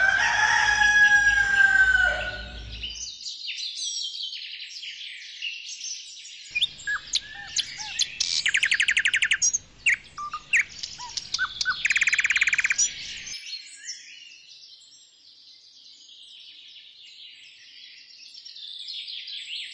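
Birdsong from several birds: many short chirps with two fast trills in the middle, after a louder, longer falling call in the first couple of seconds. The chirping fades to a softer, high twittering in the last few seconds.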